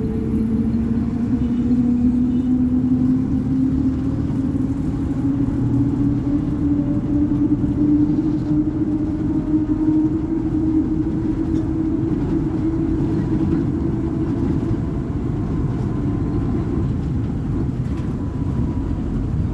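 Volvo B58 bus's six-cylinder diesel engine running under load, its note climbing slowly and steadily as the revs rise.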